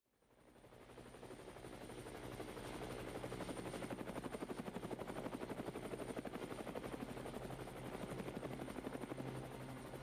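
Helicopter rotor chop, a rapid steady beating with a thin high whine, fading in from silence over the first couple of seconds.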